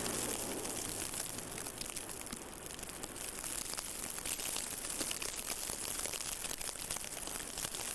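Blizzard wind and blowing snow hissing over a camcorder's microphone, with a fine, constant crackle running through it.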